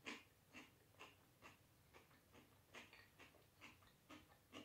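Close-miked chewing of crunchy raw cabbage salad with the mouth closed: faint, even crunches about twice a second.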